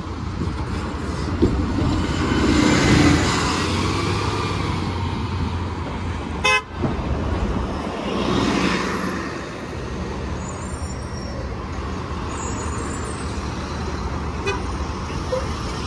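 Street traffic at a city intersection: a New Flyer Xcelsior XD60 articulated city bus passes close, its engine and tyre noise swelling about eight seconds in, over passing cars, with an earlier swell of passing traffic and a vehicle horn toot. A brief sharp click comes about six and a half seconds in.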